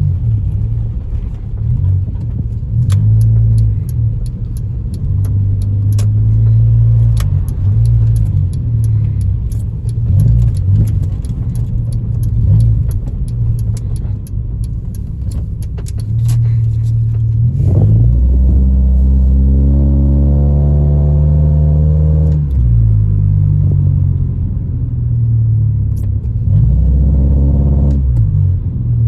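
Honda Civic EJ9 automatic, heard from inside the cabin while driving, its engine misfiring on all four cylinders. The low engine drone climbs in revs about two-thirds of the way through and again briefly near the end. Light clicking and rattling runs through the first half.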